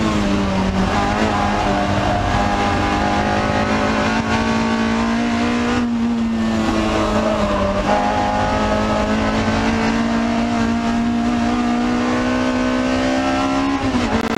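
Toyota 2ZZ-GE four-cylinder engine with an aftermarket header and exhaust, heard from inside the MR2 Spyder's cabin, pulling hard at high revs on track. Its note drops as the car slows near the start and breaks briefly about six seconds in. It then climbs steadily toward the 8,000 rpm range at full throttle near the end.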